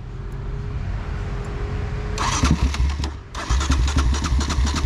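Stalled ATV engine being cranked on its electric starter. About two seconds in it fires in loud, rapid, uneven bursts, breaks off for a moment, then fires again. It is struggling to start and run.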